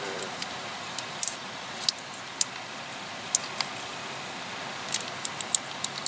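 Steady outdoor background hiss with about a dozen short, sharp, high-pitched ticks scattered at irregular intervals, a few of them in quick pairs.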